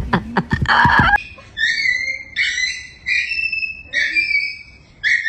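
A few taps and a brief rustle, then a series of high, whistle-like animal calls, each under a second long, coming about once a second.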